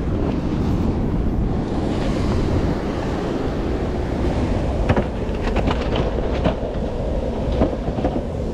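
Wind buffeting the microphone over the wash of surf, with a handful of short knocks and scrapes about five to six and a half seconds in and once more near the end.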